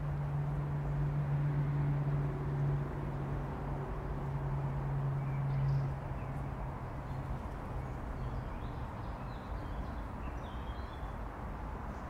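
Distant city traffic as a steady rumble, with a low engine drone that is strongest in the first half and fades about halfway through. Faint bird chirps come through in the second half.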